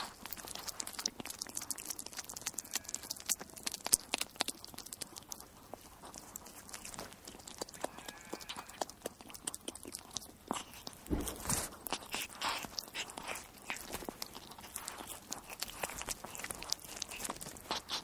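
Weasel eating: rapid, irregular crunching and chewing clicks as it bites through its food, with a louder crunch about eleven seconds in.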